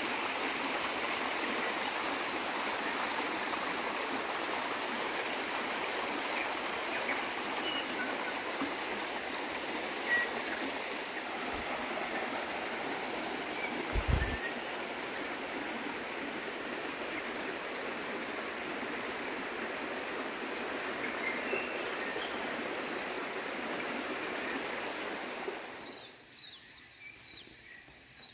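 Steady rush of a river or stream flowing, with a few faint bird chirps over it and a soft low bump about halfway. About two seconds before the end the water sound cuts off, leaving a bird singing a quick series of high chirps.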